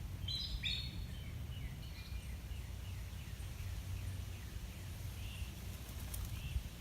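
A small bird singing: a quick run of high chirps about half a second in that step down in pitch and fade over the next few seconds, then a few faint chirps near the end. A steady low rumble lies under it.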